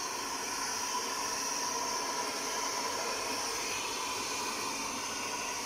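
Handheld hair dryer blowing on a dog's coat: a steady rushing hiss with a thin, even motor whine.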